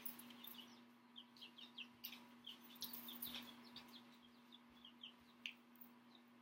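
Faint bird chirps, a scattered series of short, high, falling peeps, over a steady low electrical hum.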